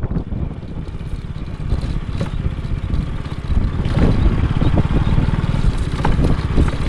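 A vehicle's engine running while it drives over a rough, broken mountain road, with loose clattering and rattling from the bumps. The engine sound grows louder about halfway through.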